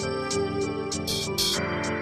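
Background music with a steady beat: sustained notes under short high ticks about four times a second, with two louder hissing strokes a little past a second in.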